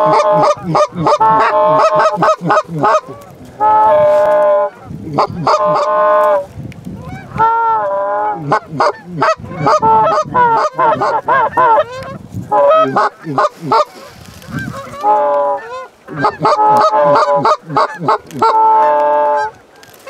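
Hand-blown Canada goose calls, loud and close, honking and clucking in quick runs of notes with short pauses between them, calling to flocks of Canada geese overhead.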